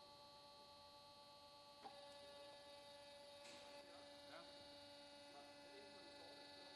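Near silence: a faint steady electrical hum, with a faint click about two seconds in and a second low steady hum joining a little later.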